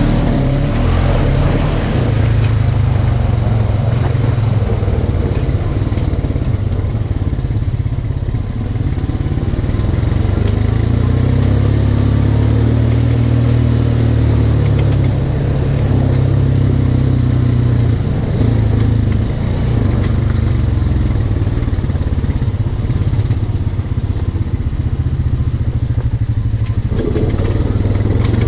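Side-by-side off-road vehicle engine running steadily at low speed, a loud low drone with only small changes in pitch.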